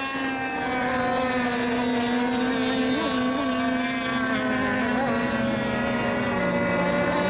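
Radio-controlled racing boat engines running at speed in a high, steady drone. A second, lower engine note comes in about six seconds in.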